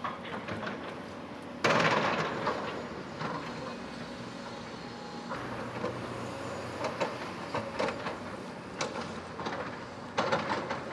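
Excavator working: a running engine with irregular clanks and knocks, suddenly louder a couple of seconds in and easing off after.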